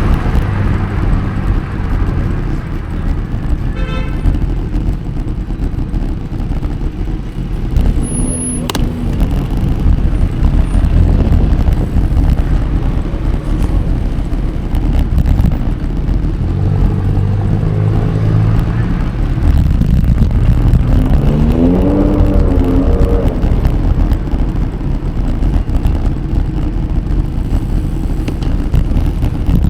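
Road traffic noise: a steady low rumble of motor vehicles. About 21 seconds in, one engine rises in pitch as it accelerates.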